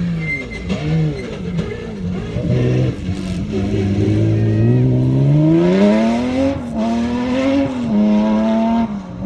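Off-road rally car engine revving hard on a dirt course: the revs bob up and down several times as it turns round the barrel, then climb steadily as it accelerates away, the pitch dropping sharply twice at upshifts.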